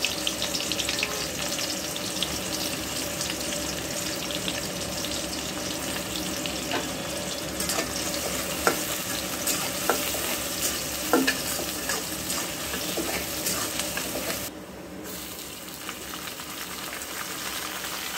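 Sliced onions sizzling in hot oil in a karahi, with a metal spatula scraping and clicking against the pan as they are stirred. About three-quarters of the way through, the sizzle drops to a softer level once red amaranth leaves are in the pan.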